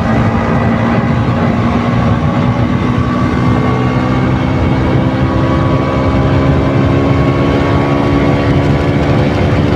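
KTM RC 200's single-cylinder four-stroke engine through its stock exhaust, heard close from a bike-mounted mic while riding at a steady speed; the engine note holds nearly constant pitch with only slight drift.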